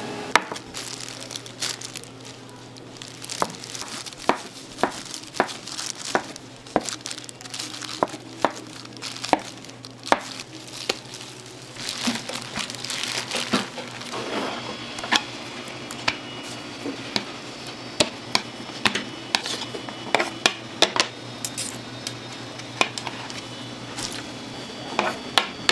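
Kitchen work sounds: irregular clinks and knocks of metal utensils and trays, with some crinkling, over a steady low machine hum.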